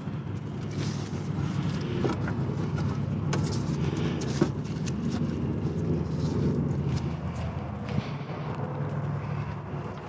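Steady low hum of a vehicle engine running, with a few light clicks from hands working behind a motorcycle's rear fender.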